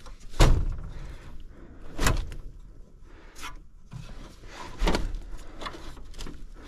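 Knocks and scraping of an evaporator coil and its drain pan being worked loose from the coil housing, with the loudest knock about half a second in and others near two and five seconds.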